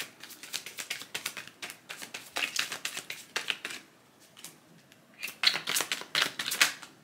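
A deck of tarot cards being shuffled by hand: quick runs of crisp card clicks and flutters, in about three bursts with short pauses between.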